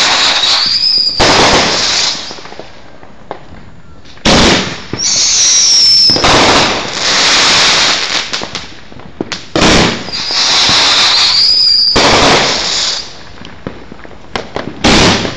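A 500-gram, 30-shot consumer firework cake firing a shot about every five seconds, three times. Each shot is a sharp launch thump, then a wavering whistle, then a long, loud crackling break.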